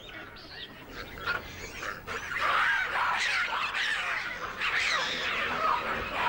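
A troop of hamadryas baboons screaming during a chase, with many short, overlapping calls. The calls are sparse at first and become a loud, continuous din from about two seconds in.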